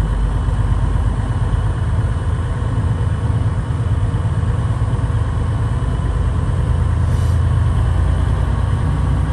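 Semi truck's diesel engine running with a steady low rumble as the truck drives slowly, heard from inside the cab.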